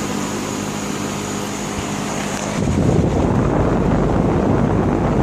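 2004 Tempstar straight-cool central air conditioner condenser running, a steady hum from its Copeland scroll compressor and condenser fan. About two and a half seconds in, a louder rush of wind on the microphone takes over and muffles the higher sounds.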